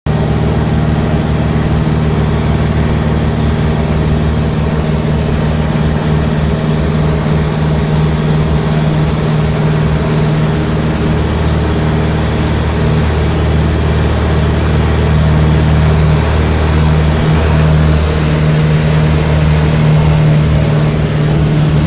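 Small plane's propeller engine droning steadily, heard from inside the cabin, growing slightly louder in the second half.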